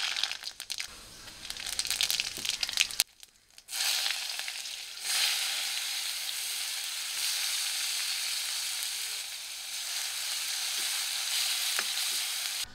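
Mustard seeds crackling and popping in hot oil in an iron kadhai. After a brief gap comes a steady sizzle, which grows louder about five seconds in as chopped onion goes into the oil and is stirred.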